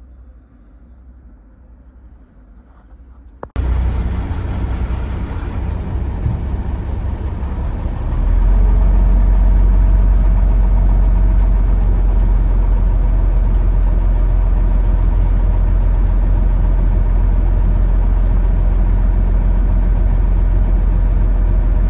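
Fire engine's diesel engine running, heard from inside the cab: a steady low rumble that comes in suddenly after a few quiet seconds and gets louder and deeper about eight seconds in.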